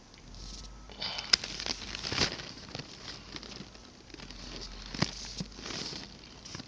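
Irregular rustling and crinkling close to the microphone, with a few sharp clicks scattered through it.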